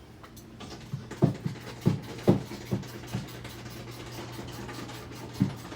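A run of sharp knocks and clicks, about six in all, spread irregularly over a steady low hum.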